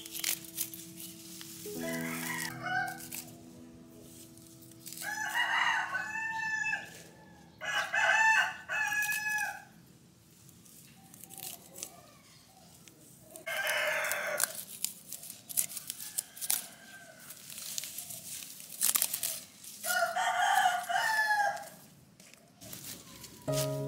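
Roosters crowing about four times, each crow lasting a second or two, over soft background music that fades out about halfway through. Light clicks are scattered between the crows.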